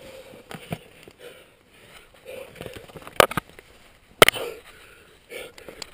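A rock climber breathing hard and sniffing close to a body-worn camera mid-route, with two sharp knocks about three and four seconds in.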